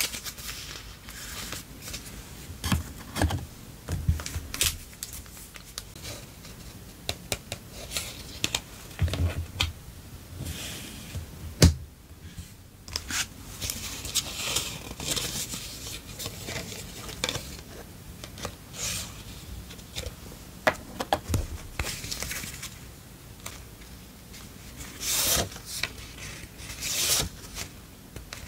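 Paper stationery and clear plastic packaging being handled: pages and sheets flipping and rustling, plastic sleeves crinkling, with a few soft thumps as things are set down on the wooden desk.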